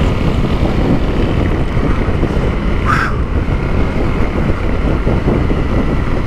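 Honda CRF250L single-cylinder engine running steadily at road speed, mixed with heavy wind buffeting on the helmet-camera microphone.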